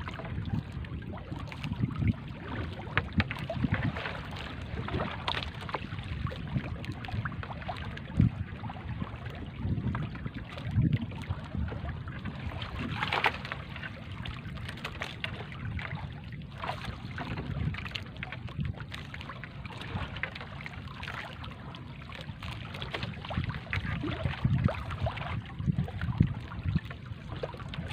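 Wet fishing net being hauled in by hand over a boat's wooden gunwale, rustling, with water dripping and splashing off the mesh. Wind buffets the microphone in irregular gusts.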